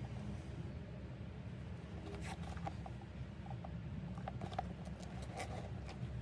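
Bags and packaging being handled: scattered small rustles and clicks, busiest in the middle, over a steady low hum.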